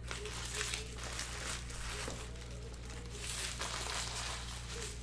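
Rustling and crinkling of trading-card pack wrappers and cards being handled, in irregular short bursts.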